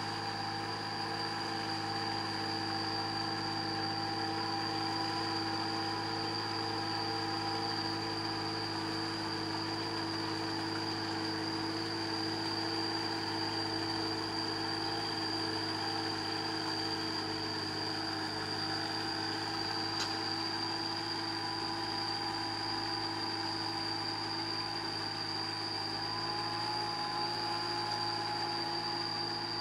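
A Kubota tractor's diesel engine running steadily as it works a flooded rice paddy, pulling a leveling harrow on cage wheels.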